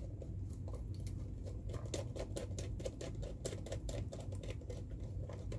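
A run of light, irregular clicks and scratches from a wire being handled and worked into a plastic terminal block on a contactor panel.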